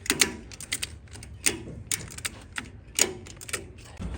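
Irregular sharp clicks and light knocks, a few a second, of hard objects being handled.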